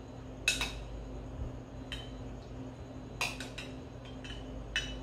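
A metal spoon clinking against ceramic bowls about seven times at irregular intervals, each clink with a short ring, as chunks of marinated raw tuna are spooned from one bowl into another. The first clink is the loudest.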